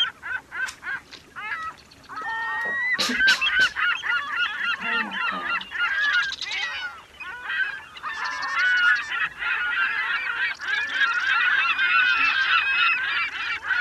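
A flock of birds calling over one another in many short, overlapping honking calls. The calls start faintly and grow loud and continuous from about two seconds in, with a few sharp clicks near the start.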